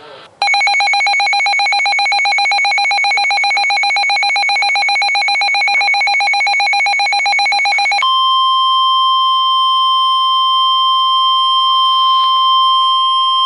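Weather radio alert: a fast-pulsing electronic alarm tone for about eight seconds, then the steady 1050 Hz NOAA Weather Radio warning alarm tone, which signals that a warning is about to be broadcast.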